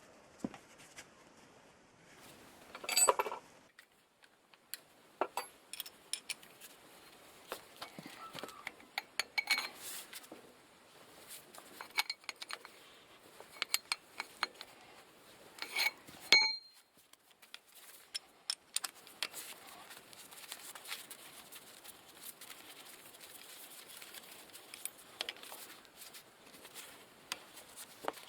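Metal hand tools and parts clinking and knocking at irregular intervals, some strikes leaving a short metallic ring; the loudest knocks come about three seconds in and again about halfway through.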